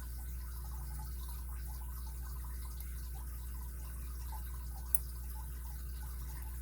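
Faint, irregular metallic ticking of a lock pick working the pins of a Kryptonite padlock's six-pin core, with one sharper click about five seconds in, over a steady low hum.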